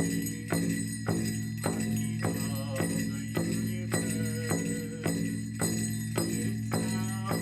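Powwow drum beaten in a steady, even rhythm of about two beats a second, with jingle bells ringing throughout.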